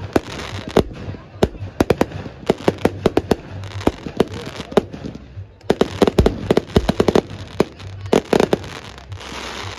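Fireworks going off: dozens of sharp bangs and crackles in quick, irregular succession, with a short lull a little past halfway.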